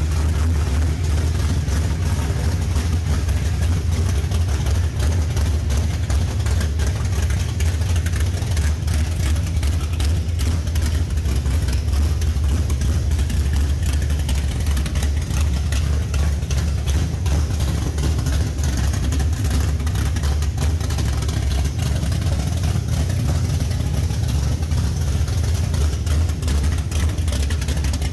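Chevelle V8 with a Holley EFI throttle body idling, with a steady low rumble and an uneven pulse; it has been started to see if it will run on only seven cylinders.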